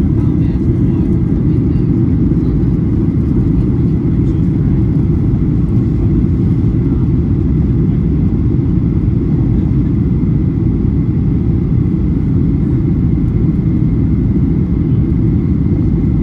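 Steady low jet engine and airflow noise heard inside a Boeing airliner's cabin in flight, with a faint high steady tone above it.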